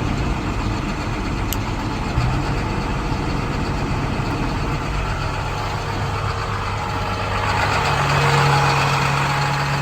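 International 4300's MaxxForce DT inline-six diesel idling steadily. Near the end a steady low hum strengthens and the sound gets a little louder.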